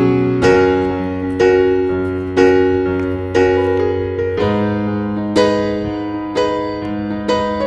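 Background music: a slow piano piece, notes struck about once a second over a held bass.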